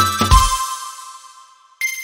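Intro music with synth tones and a drum beat, its last hit about half a second in, then ringing out and fading. Near the end a single bright chime sounds and rings away.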